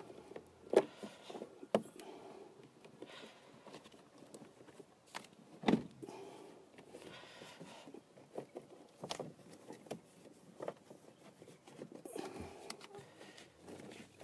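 Scattered clicks, knocks and rustling from hands handling battery cables and wiring-harness plugs around two batteries in a boat's battery compartment. The loudest knock comes about six seconds in.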